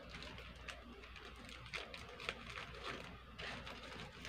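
Faint crinkling and scattered light clicks as a thin plastic pouch is cut open with scissors and pulled apart by hand.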